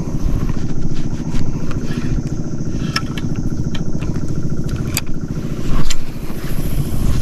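A small engine running steadily with a fast, even pulse, with a few sharp clicks about three, five and six seconds in.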